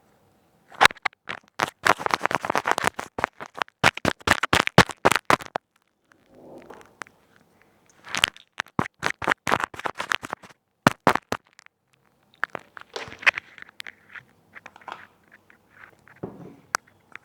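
Crackling and scratching noises made right against a headset microphone. There are two dense runs of rapid sharp clicks, from about 1 to 5.5 seconds and from 8 to 10.5 seconds, then sparser clicks and scrapes.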